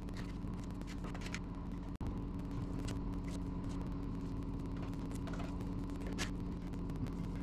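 Steady machine hum with a low drone, broken by scattered light clicks.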